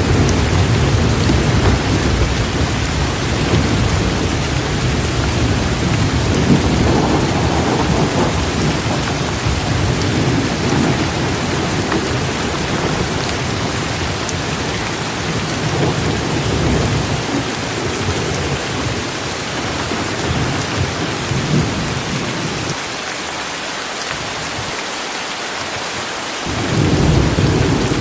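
Heavy rain pouring steadily, with thunder rumbling low and rolling underneath. The rumble dies away about three-quarters of the way through, and a new roll of thunder starts shortly before the end.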